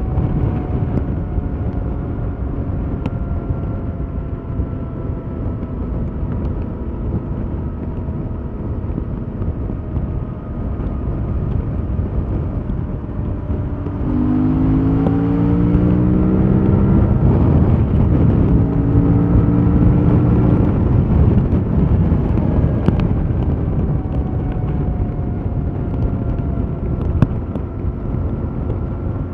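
Stock 2021 Yamaha MT-07's 689 cc parallel-twin engine under way, with wind rushing past. It first runs with slowly falling pitch, then about halfway it gets louder and pulls up through a couple of gear changes before easing off again.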